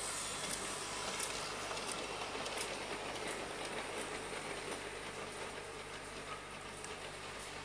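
G-scale Piko BR 204 model diesel locomotive and ore hopper wagons rolling along brass track, wheels clicking over the rail joints every half second or so. The rolling noise is loudest in the first second or two and slowly eases as the train moves away.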